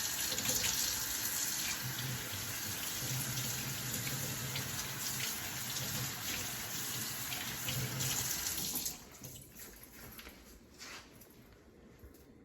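Tap water running steadily into a sink while hands are washed and rinsed. The water is turned off about nine seconds in, leaving only a few faint clicks and knocks.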